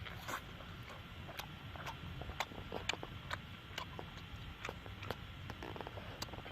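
Irregular sharp clicks and crackles, about one or two a second, over a low steady rumble.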